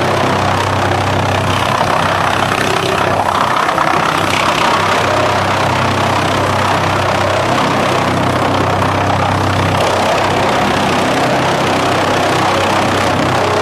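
ASILVA DFR4-550s drum chipper running and chipping wood offcuts and log pieces fed in on its chain infeed conveyor. The noise is loud and steady, with a low hum underneath.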